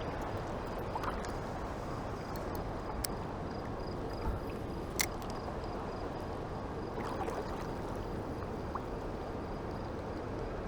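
Steady rushing of a mountain stream flowing over its bed, with a few light clicks, the sharpest about five seconds in.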